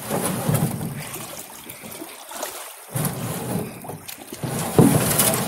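Water splashing and trickling around a canoe in shallow, rocky rapids. There are a couple of sharp knocks, about three seconds in and again near the end.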